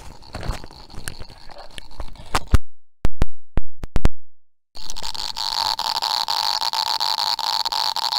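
Hiss from a small speaker driven by an LM386 amplifier, which amplifies random noise from a reverse-biased NPN transistor junction (tunneling and avalanche noise). It is faint with crackles at first, cuts out for about two seconds with a few loud clicks as the microphone is handled, then from about five seconds in is a loud, steady hiss with the microphone held next to the speaker.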